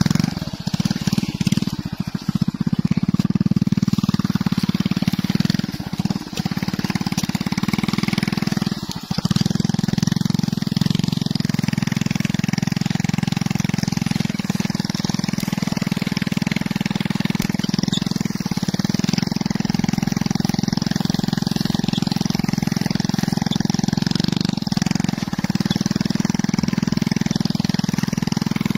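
Small motorcycle engine running steadily under load as it tows a plough through the soil by rope. The engine note dips briefly a few times in the first ten seconds.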